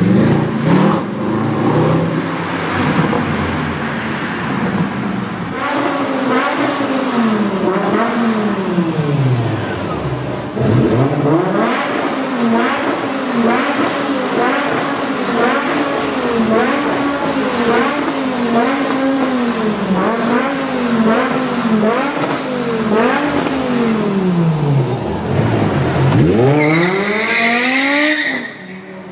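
A high-performance car engine revving hard, its pitch rising and dropping about once a second as it accelerates and shifts, twice falling low before climbing steeply again. Near the end there is a brief high-pitched squeal.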